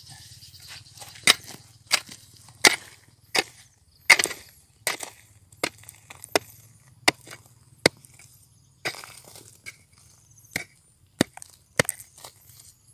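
Wooden-handled digging tool striking and breaking into crumbly dark rock, with loose stone chips scattering. Sharp blows come steadily about every three-quarters of a second, with a short pause about two-thirds of the way through.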